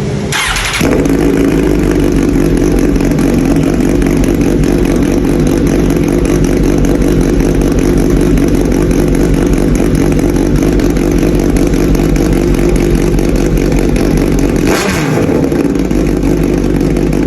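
Suzuki GSX1000 motorcycle engine running steadily through a newly installed muffler. A brief rush of noise comes shortly after the start and again about three seconds before the end.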